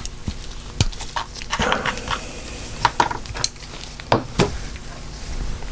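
Light clicks and clatter of paintbrushes and a metal palette tray being handled in a supply box. The knocks come irregularly, the loudest two close together about four seconds in.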